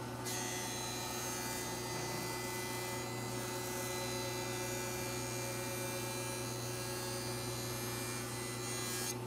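Jointer running: a steady electric-motor hum, with a higher whirring hiss that sets in just after the start and drops away near the end.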